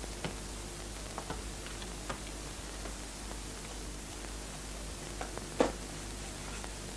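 Quiet room tone of steady hiss and hum with a few soft taps and knocks of books being handled on a wooden bookshelf, the loudest knock about five and a half seconds in.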